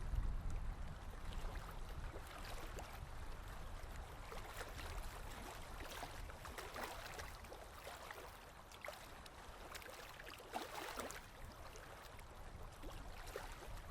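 Water splashing and lapping around a boat in irregular splashes, over a low rumble that eases after the first couple of seconds.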